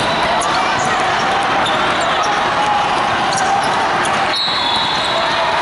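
Basketball game in a big echoing hall: balls bouncing on a hardwood court and a steady din of many voices. A high sneaker squeak comes in about four seconds in.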